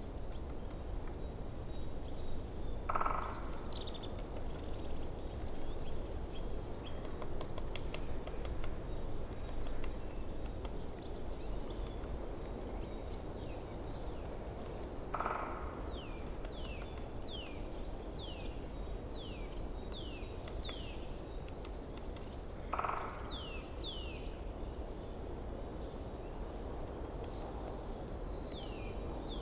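Forest stream running steadily, with songbirds chirping over it: scattered high chirps, a run of quick downward-sliding chirps about two a second in the second half, and three short, louder calls spaced several seconds apart.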